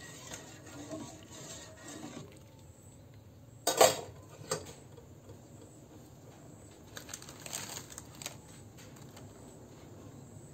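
A metal ladle stirring shrimp stock in a pot, then a loud clank of the ladle against the pot about four seconds in, with a lighter knock just after. After that only faint ticks and bubbling from the simmering stock.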